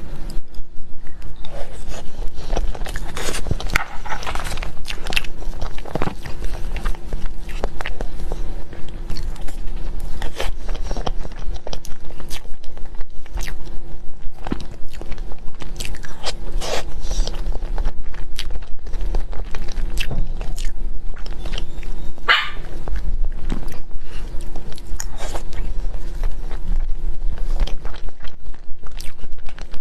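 Close-miked eating of a blue mille crepe cake: wet chewing, smacking and clicking mouth sounds, coming thick and irregular, over a faint steady hum.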